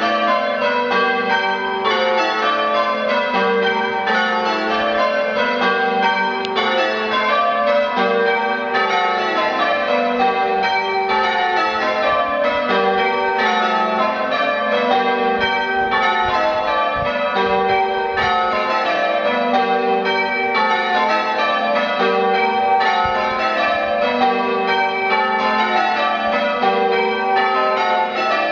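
Ring of eight church bells, cast by John Taylor of Loughborough, being rung full-circle in the English style: a steady, unbroken run of bell strikes one after another.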